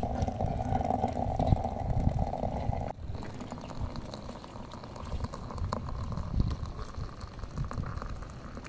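Abgoosht broth boiling in a pot, a steady bubbling over a low rumble; the sound changes abruptly about three seconds in.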